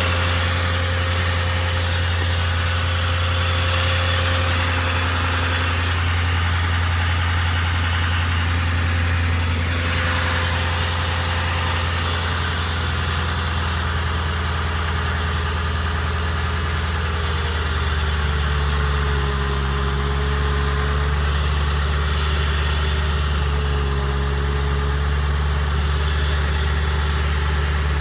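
Ford 4.6-litre V8 idling steadily, run after a water pump replacement and coolant refill to check for leaks. About eighteen seconds in, its note shifts slightly.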